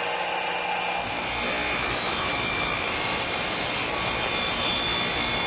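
Radial arm saw running and crosscutting wooden end pieces to length: a steady machine whine with the rasp of the blade in the wood, growing fuller about a second in.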